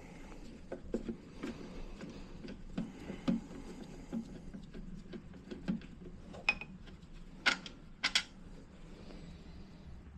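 Light clicks, taps and clinks of hand tools and small metal boiler parts being handled, with three sharper clicks close together about seven and a half to eight seconds in.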